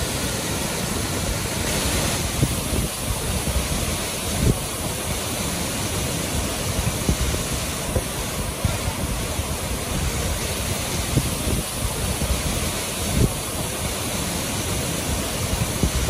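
Fukiware Falls, a wide curtain waterfall about 7 m high and 30 m across, pouring over rock in a steady, powerful rush of water heard up close. A few brief low thumps break through the rush, about two and a half seconds in, again around four and a half seconds, and near thirteen seconds.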